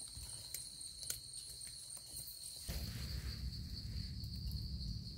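Steady high-pitched drone of insects, with a few faint clicks in the first half. A low rumble sets in about halfway through.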